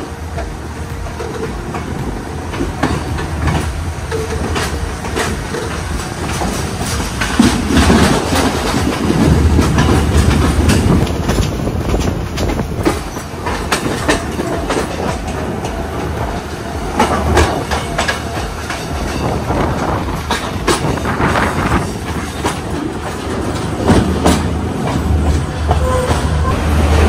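Yal Devi Express passenger train running on the track: steady low rumble of the running gear with frequent sharp clacks of the wheels over the rail joints.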